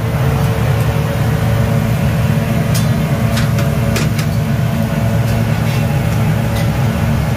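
Steady low roar of a busy commercial kitchen's cooking station, with a few sharp metal clinks of cooking utensils near the middle.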